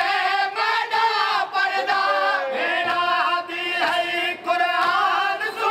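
A group of men's voices chanting a Muharram lament (noha) together in long, held sung phrases, the kind of chant that accompanies matam (ritual chest-beating).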